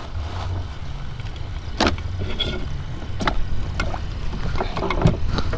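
Steady low rumble of wind and water around a small wooden fishing boat, with a few sharp knocks: one about two seconds in, others near three and five seconds.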